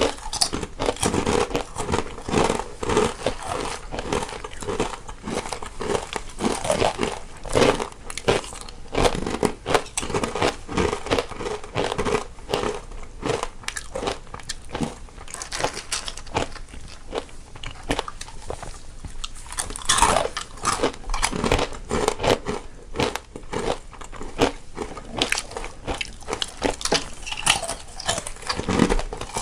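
Two people biting and chewing crunchy snacks close to the microphone, one on the left and one on the right, in a dense run of irregular crisp crunches.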